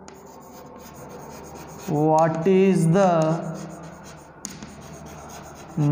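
Chalk writing on a blackboard: a dry, steady scratching with small taps as the words are written. About two seconds in, a man's voice speaks for about a second and a half. A single sharp tap of chalk on the board comes a little past the middle.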